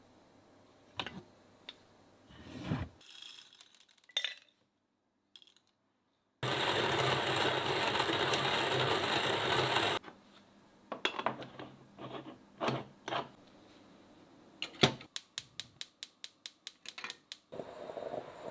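Making stovetop coffee in a Bialetti Moka Express. A few knocks and clinks come first, then a loud steady rushing noise for about three and a half seconds, then more metal clinks as the aluminium pot is handled and set down. Near the end a gas hob igniter clicks rapidly, about six clicks a second, and the burner catches with a low steady hiss.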